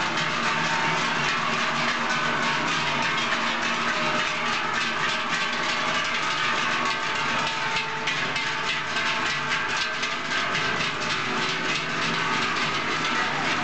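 Large cowbells hung from the necks of a procession of walking cows, many clanging at once in a dense, uneven jangle of overlapping strikes and ringing tones.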